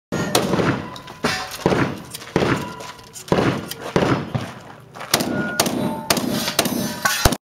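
Rapid gunshots from a long gun, about a dozen shots in quick strings, each with a short echoing tail, cutting off abruptly near the end.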